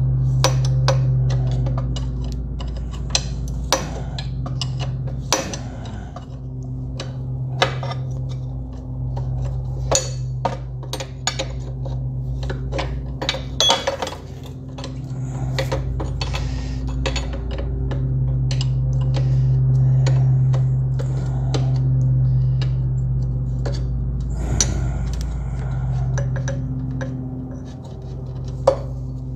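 Metal hand tools and bolts clinking and clicking against the ATV's steel suspension parts as A-arm bolts are undone and pulled out, in many scattered sharp strikes. A steady low hum runs underneath.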